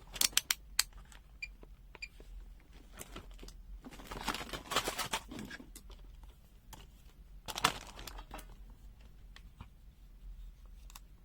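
Handling noise from a multimeter and its test leads: a quick cluster of sharp clicks at the start, then rustling, and another click about halfway through.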